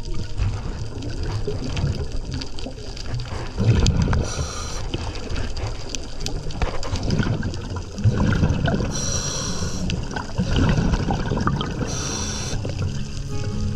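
Underwater sound of a scuba diver breathing through a regulator: three short hissing inhalations spaced a few seconds apart, with exhaled bubbles gurgling and rumbling in between.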